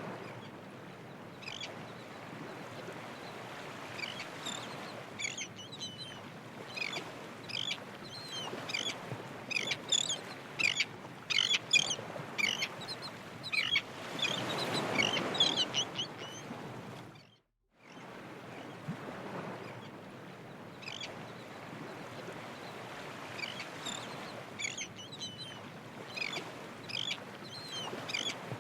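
Birds calling: many short, sharp calls over a steady rushing background. A louder swell of rushing noise comes around the middle, the sound cuts out for a moment just after it, and the calls then carry on.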